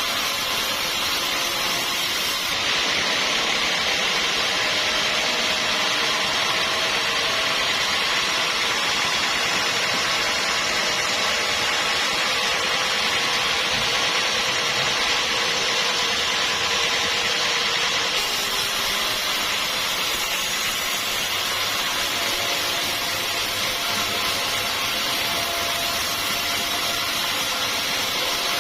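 Sawmill machinery running steadily: a continuous, even machine noise with no breaks.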